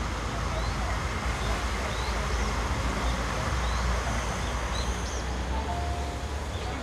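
Diesel engines of a Tango Explorer KTR001 diesel railcar set running as the train creeps slowly toward the station, a steady low rumble. Small birds chirp over it.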